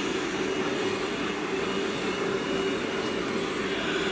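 A steady mechanical hum, like a motor or engine running, with a faint high whine above it.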